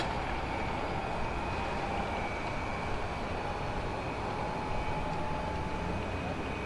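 PKP Intercity electric multiple-unit train approaching slowly over the station pointwork: a steady rumble with a faint, steady whine.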